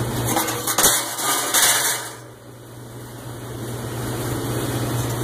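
A steady low machine hum, like an engine running. Loud rushing noise over it during the first two seconds eases off, then slowly builds again.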